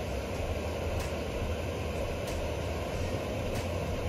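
Steady low rumbling background noise, with a faint tick repeating about every second and a quarter.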